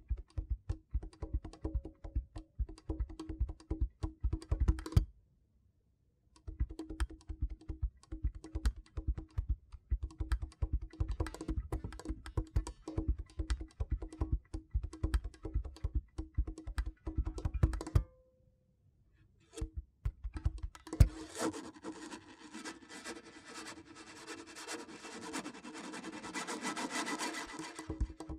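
Acoustic guitar played percussively: fast taps and knocks on the strings and body with low thumps under a steady held note, stopping twice for a moment. Past the two-thirds mark, fuller ringing chords fill out the sound.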